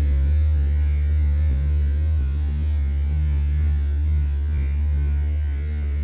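A loud, steady low hum with a stack of buzzing overtones.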